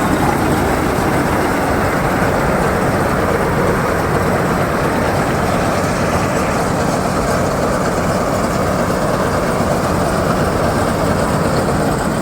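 Combine harvester at work cutting rice paddy, its engine and threshing machinery running with a loud, steady mechanical noise.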